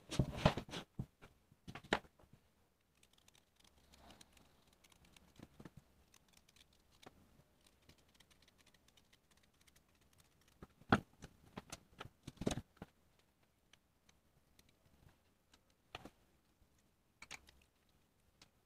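A small knife and a lemon being handled on a plastic cutting board: faint scraping while the peel is pared off, with scattered clicks and taps, and two louder knocks in the middle as the knife goes through to the board.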